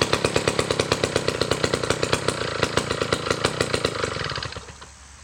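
1957 David Bradley two-stroke chainsaw engine idling with a steady, rapid putter, then stopping about four and a half seconds in.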